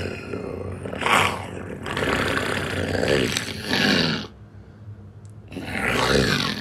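A human voice actor's monster vocals: rough growls and roars in bursts. There is a short one about a second in, then a long growl that drops in pitch around four seconds in, a short lull, and another roar near the end.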